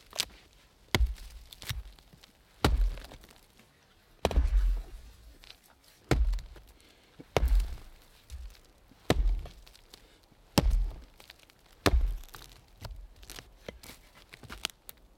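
An axe chopping into the trunk of a standing tree, about ten sharp blows with a low thud in each, roughly a second or so apart, with lighter blows near the end.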